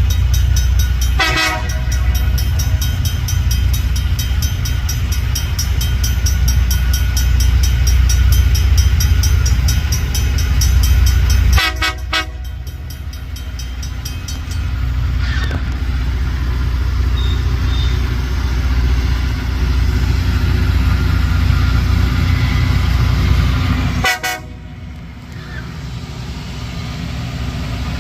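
LORAM rail grinder working the rail: a loud, steady grinding and heavy engine rumble. It drops off abruptly about twelve seconds in and again near twenty-four seconds, each time with a short pitched blip.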